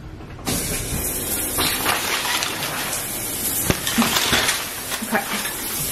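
Shower water spraying onto a tiled shower stall, coming on abruptly about half a second in and then running steadily as a hiss, with one sharp knock partway through.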